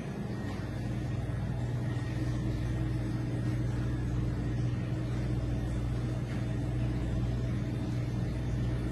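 A steady low mechanical hum, such as a kitchen fan or appliance running, with no distinct knife or cutting sounds standing out.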